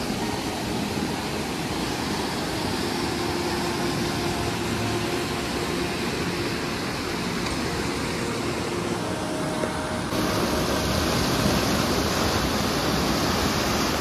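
River water rushing over rocks in a steady wash, the river running high after two days of heavy rain. It gets a little louder about ten seconds in.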